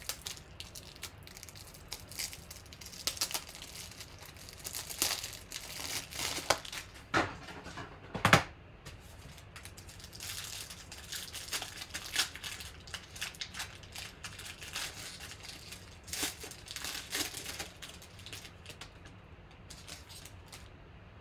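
A foil trading-card pack crinkling and tearing as it is opened by hand, with irregular crackles and one sharp, louder crackle about eight seconds in. It grows quieter near the end as the cards are handled.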